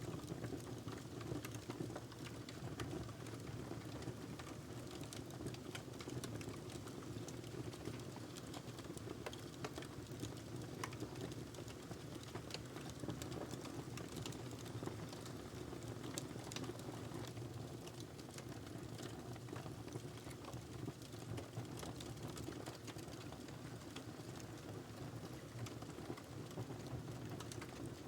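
Wood fire burning in a fireplace: a steady low rumble of flame with irregular small crackles and pops from the burning log.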